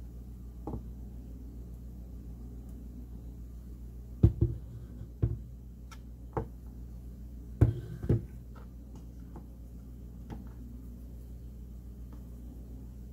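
A plastic blender jar knocks and taps a few times against a bowl while blended almond mixture is poured into a cheesecloth, with two sharp knocks about four and seven and a half seconds in. A steady low hum runs underneath.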